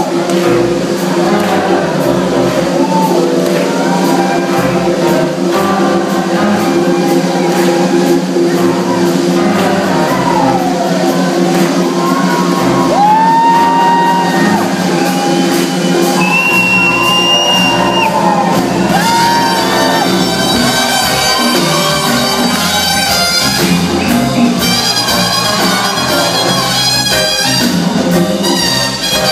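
Live band playing in a large concert hall, heard from the audience: held chords with long gliding notes over them, then, about twenty seconds in, the band breaks into a driving beat.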